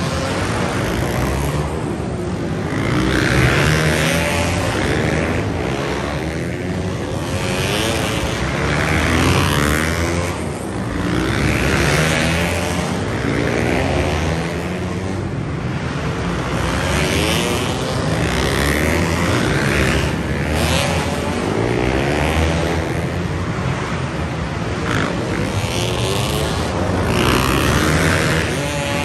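Several dirt-track racing motorcycles lapping an indoor short track. Their engines rev up and ease off in turn, so the sound swells and fades about every two seconds as the bikes pass.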